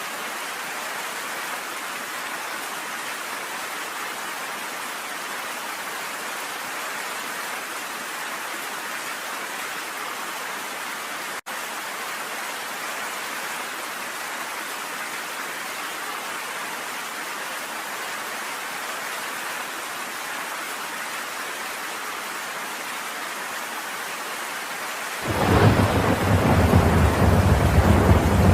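Steady heavy rainfall. About 25 seconds in, thunder breaks in suddenly with a loud, low rumble that carries on under the rain. There is a split-second dropout near the middle.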